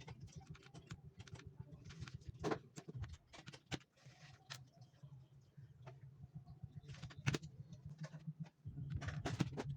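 Keyboard keys clicking and rattling irregularly as the keyboard is cleaned, with a few short rubbing hisses and a low steady hum underneath.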